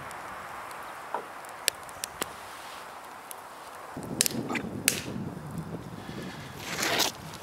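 Wood fire in a rocket stove with a frying pan on top: a steady hiss with scattered sharp clicks and knocks. From about four seconds in, wind rumbles on the microphone.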